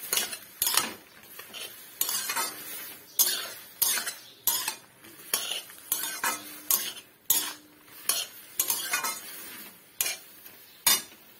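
Metal spatula stirring jujubes in a metal kadai, scraping along the pan in irregular strokes about once a second.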